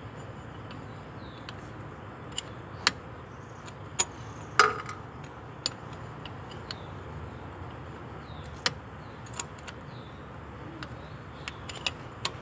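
Irregular sharp metal clicks and scrapes as a tool pries at a holed, corroded freeze plug stuck in a cast engine block, with the loudest click about halfway through. The plug is hard to get out.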